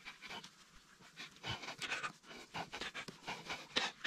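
Cloth wiping marker off a whiteboard: quick, uneven back-and-forth rubbing strokes, about two to three a second.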